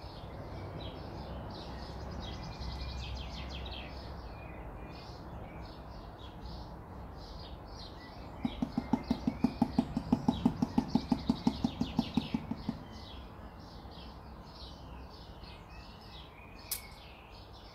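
Small birds chirping steadily in the background. About eight seconds in, a quick run of low, pitched pulses, about five a second, lasts some four seconds and is the loudest sound.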